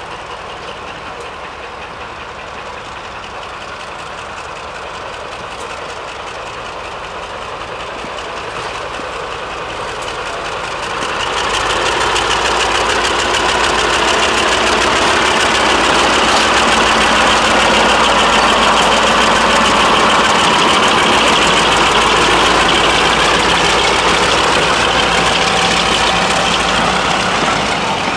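Class 35 Hymek diesel-hydraulic locomotive D7076's Maybach V16 diesel engine under power as it departs with a train of coaches. The engine grows much louder about ten seconds in as the locomotive comes close, then holds steady, its pitch gliding up and down.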